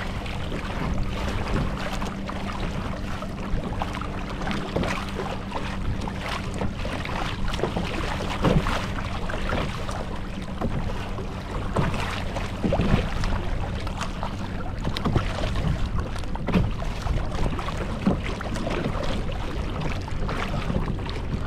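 Water splashing and sloshing irregularly against a kayak's hull as a big jack crevalle is towed alongside to revive it. A steady low hum sits under the water sounds for the first several seconds, then fades.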